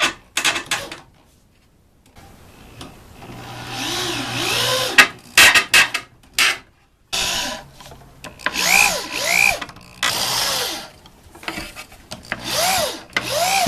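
Cordless drill driving screws into 2x4 boards: several short runs of the motor, its whine rising and falling in pitch with each trigger pull, with a few sharp knocks between the runs.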